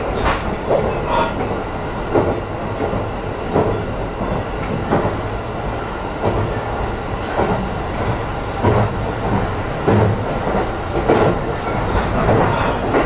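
E531-series electric train running between stations, heard inside the passenger car: a steady rumble with the wheels clacking over rail joints about once a second.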